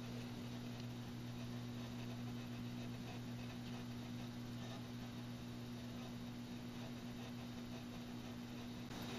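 Faint steady low electrical hum over a light hiss, with the hiss growing a little brighter near the end.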